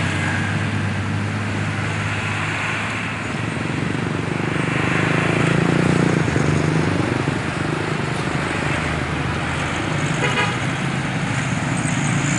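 Road traffic passing close by: bus and motorcycle engines running, swelling to their loudest about six seconds in as a motorcycle and a bus go past. A short horn toot about ten seconds in.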